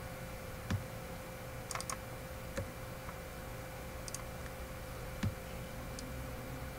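Scattered computer mouse and keyboard clicks, about half a dozen single clicks spread over several seconds, one of them a quick double click, over a faint steady electrical hum.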